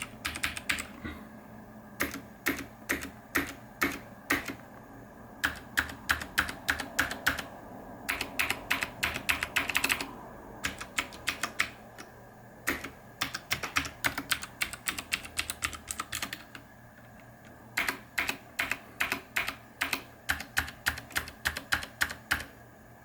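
Typing on a Cooler Master QuickFire XT full-size mechanical keyboard with Cherry MX Blue switches: bursts of sharp, clicky keystrokes with short pauses between runs.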